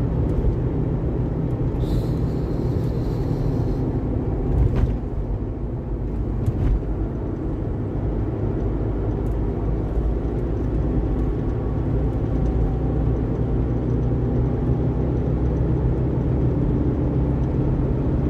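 Car driving at steady speed, heard from inside the cabin: a steady low rumble of engine and tyre noise. A brief hiss comes about two seconds in, and there are two light knocks around five and seven seconds.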